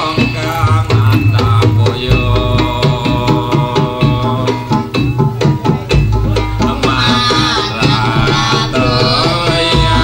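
Jaranan dance music: hand drums beating a quick, dense rhythm under held melodic tones from the ensemble. A wavering high melody comes in over it about seven seconds in.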